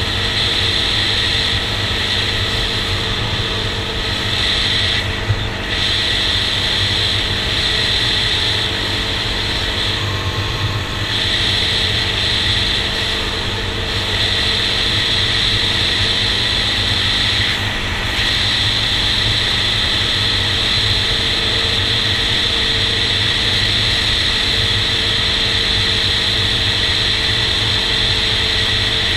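Honda TRX400EX quad's single-cylinder four-stroke engine running steadily at cruising speed. The upper part of the sound dips briefly three times.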